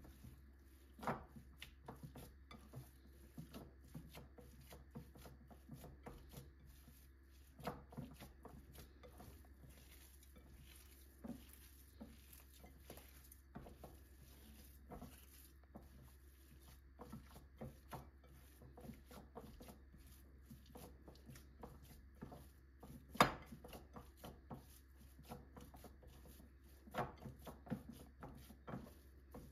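Hands kneading raw ground beef in a glass bowl: soft, irregular squishing and rubbing, with a few louder knocks, the sharpest about three-quarters of the way through.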